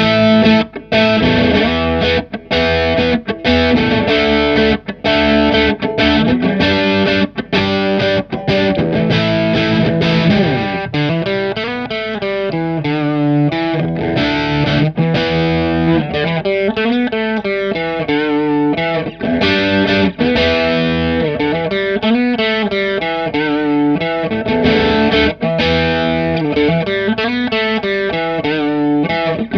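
Electric guitar overdriven by a Boss Blues Driver BD-2w and played through a Stoy Sound Choir Boy bucket-brigade analog chorus pedal. For the first third the chords come in short, chopped strums with gaps between them. After that the notes ring on and their pitch wavers slowly up and down in a deep chorus sweep.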